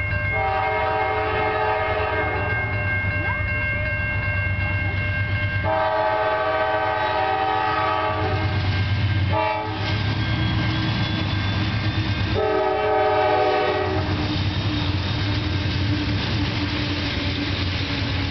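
Diesel freight locomotive's multi-note air horn sounding the grade-crossing pattern: two long blasts, a short one, and a final long one, over the steady low rumble of the approaching train. A crossing signal bell rings steadily at first and fades out about halfway through, and the locomotives reach the crossing near the end.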